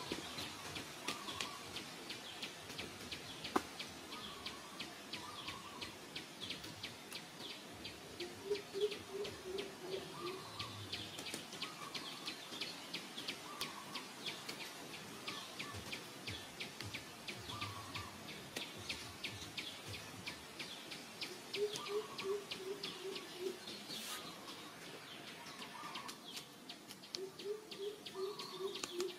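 Birds calling outdoors. One bird gives a run of about six low hooting notes, repeated every several seconds, with shorter, higher calls in between, over a steady dense fast ticking and chirping.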